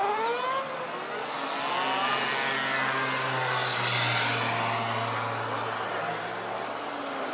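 A motor vehicle's engine revving up and passing in road traffic, its pitch climbing slowly, over a steady low hum.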